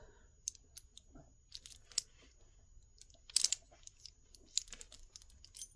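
Jewelry being handled: small scattered clicks and taps of metal pieces, with a brief crinkle, the loudest sound, about three and a half seconds in.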